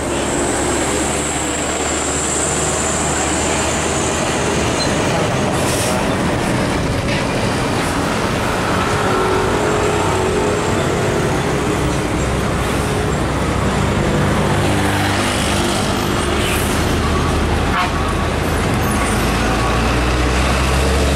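Heavy diesel trucks driving past in road traffic, their engines running over steady tyre and traffic noise. The engine note is strongest near the end.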